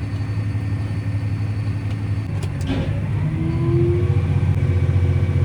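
John Deere 8235R tractor's diesel engine running steadily under load, picking up a little around three seconds in with a short rising whine.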